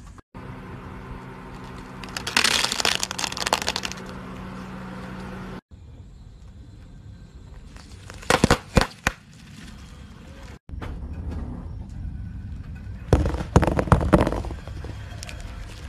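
A car tyre rolling over objects and crushing them, in three short takes: a dense crackling crunch over a low steady hum, then two sharp pops, then a cluster of crunchy cracks as brittle white chunks break under the tyre.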